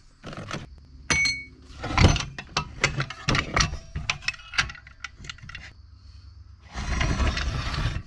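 Metal clicks, taps and rattles as a worn wing nut is unscrewed and the guide plate of an old Black & Decker circular saw is worked loose by hand, with about a second of scraping near the end.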